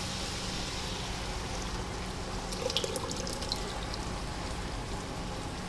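Thin yogurt-and-gram-flour batter pouring from a plastic tub into an aluminium pot of fried masala, a steady liquid pour with a few light ticks about two to three seconds in, over a steady low hum.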